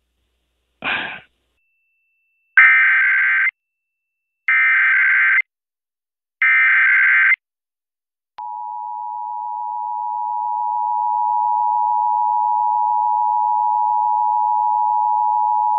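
Emergency Alert System monthly test tones on an FM broadcast: after a short blip, the SAME digital header sounds as three identical screechy data bursts of about a second each, a second apart. Then the steady two-tone attention signal (853 and 960 Hz) starts, fading up over a few seconds and then holding.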